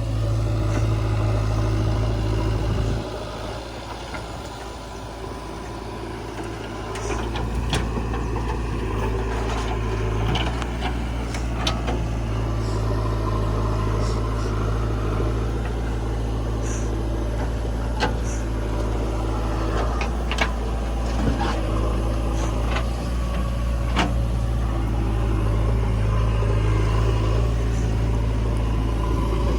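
Heavy diesel machinery running steadily, a backhoe loader and tractor at work, with scattered sharp metallic clanks. The engine noise eases off for a few seconds early on, then picks back up.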